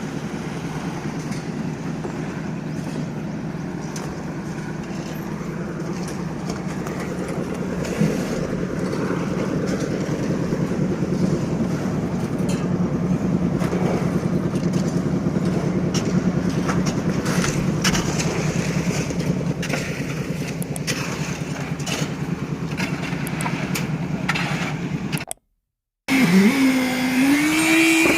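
An engine running steadily, with scattered clicks and knocks over it. It cuts off abruptly near the end, and a different machine takes over, its pitch rising and falling.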